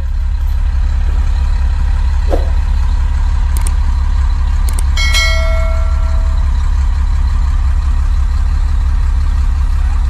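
Truck engine idling with a steady low rumble. About five seconds in, a single metallic clink rings out and fades.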